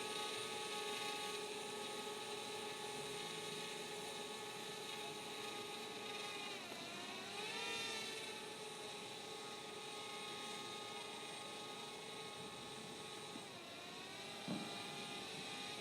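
Steady mechanical whine with many overtones, typical of rotor or propeller noise, dipping in pitch briefly about seven seconds in and again near the end. A short knock sounds near the end.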